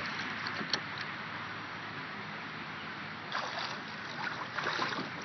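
Water sloshing and splashing lightly around a kayak and a swimmer, over a steady hiss, with a sharp click about a second in and a few brief splashes later on.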